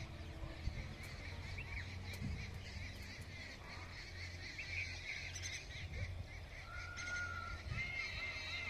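Birds chirping and calling over a low steady hum, with a run of short repeated calls near the end.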